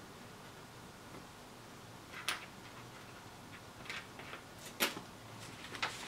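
A few faint, sharp clicks and taps from small electronic kit parts being handled and set down on a cutting mat.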